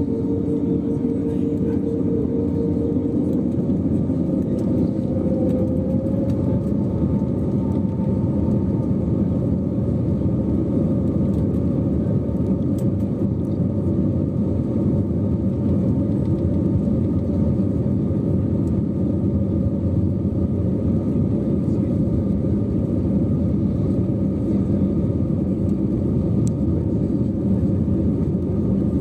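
Cabin noise of an Airbus A321neo with Pratt & Whitney geared turbofan engines, heard from a window seat over the wing: a steady rumble, with the engines' whine rising in pitch a few seconds in as they spool up.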